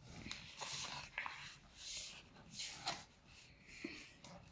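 A sheet of paper being folded and creased by hand: several soft rustles and rubs as fingers press and run along the folds.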